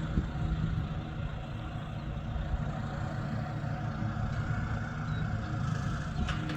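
Motor vehicle engine idling steadily, a low even rumble.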